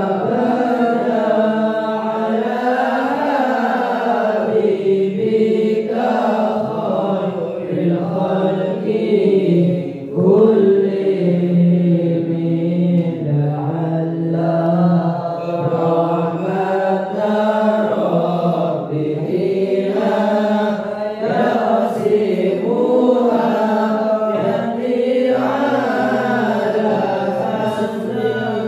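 Arabic sholawat, devotional verses in praise of the Prophet, chanted in a continuous melodic line, sung into a handheld microphone.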